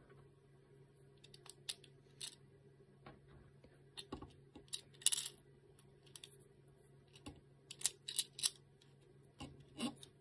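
Small metal screws clicking and tapping against a 3D-printed plastic part as they are handled and set into its holes, in an irregular string of light clicks.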